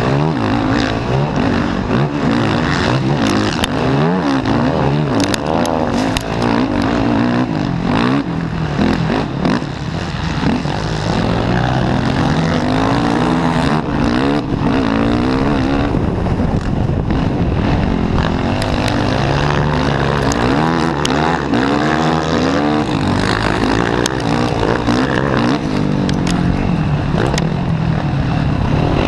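Racing quad's engine revving hard, its pitch rising and falling again and again as the rider accelerates and backs off through the track, over a steady rush of wind and spray on the helmet microphone.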